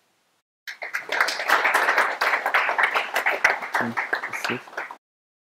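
Audience applauding, beginning under a second in and cutting off abruptly about five seconds in.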